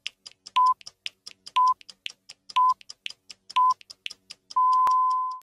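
Film-leader countdown sound effect: a short high beep once a second, four times, over rapid ticking and crackle. A longer held beep starts about four and a half seconds in and fades out near the end.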